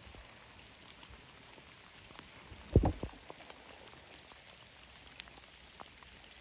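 Light rain falling, a faint steady hiss with scattered drops ticking close by. A pair of louder thumps a little before the middle.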